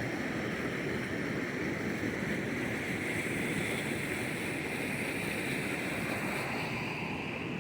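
Steady rush of creek water pouring over a small man-made waterfall.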